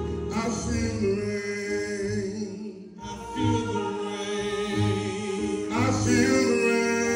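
Gospel song sung by a male soloist with a wavering vibrato, over steady sustained accompanying chords and a low bass. The singing drops away briefly about three seconds in, then comes back in on the next phrase.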